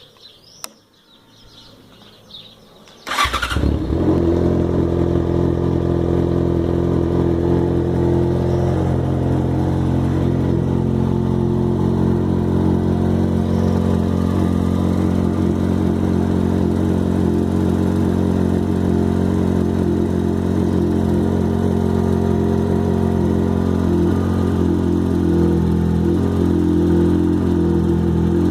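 Yamaha XJ6 motorcycle's 600 cc inline-four is cranked briefly on the starter about three seconds in, catches, and settles into a steady idle. The owner says this engine makes a 'tec tec' tapping when started cold that largely dies away once it is warm.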